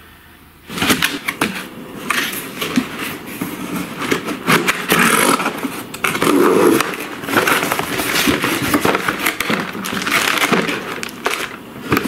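A cardboard product box being opened and unpacked by hand: cardboard flaps and an inner cardboard insert scraping, rustling and knocking, with many short clattery handling sounds. It starts about a second in after a brief quiet.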